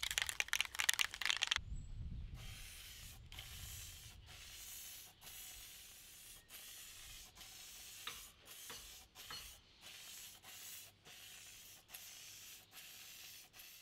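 Aerosol spray-paint can shaken hard, its mixing ball rattling for about a second and a half, then about a dozen short hissing spray bursts with brief gaps as sheet-metal panels are spray-painted.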